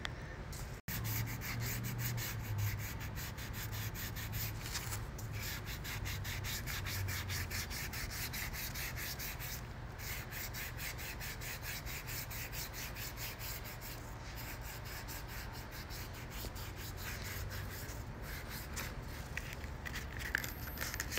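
Hand sanding along the edge of a polyurethane quarter-window louver, steady quick back-and-forth scraping strokes, scuffing the tape line so the 3M mounting tape will adhere.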